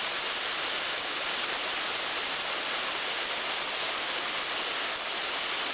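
Steady rush of water pouring over a small woodland waterfall, about 8 or 9 feet tall, into a pool.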